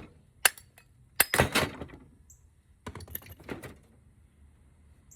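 Hand tools working a small steel bolt out of a scrap brass fitting: sharp metal clicks, then two bursts of rattling clatter as the metal pieces knock together.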